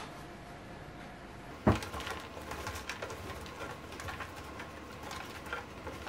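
A sharp knock on a wooden cutting board about one and a half seconds in, then a block of cheese grated on a metal box grater in irregular scraping strokes.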